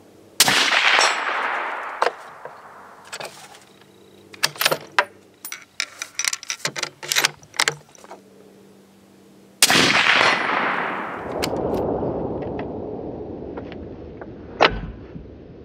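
Two suppressed .308 rifle shots through a Rugged Razor suppressor, about nine seconds apart, each cutting in suddenly and fading away in a long echo. Between them comes a run of short metallic clicks and clacks from the bolt-action rifle being worked.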